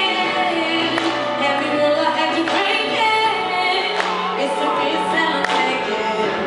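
Background music with singing voices, in the manner of a choir or gospel song.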